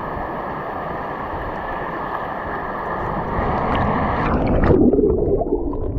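Shallow ocean surf washing around with wind on the microphone. About four and a half seconds in there is a louder splash, after which the sound turns muffled.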